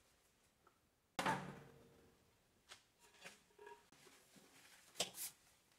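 Cleaning inside a microwave oven: a sharp knock with a short ringing decay about a second in, then a few light taps and clicks, then two quick hissing spray-bottle squirts near the end.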